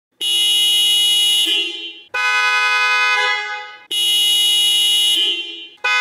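Aftermarket car horn on a 2022 Honda Civic sounding in long, loud repeated honks, each just under two seconds, alternating between a lower and a higher note. Three full honks, with a fourth starting near the end.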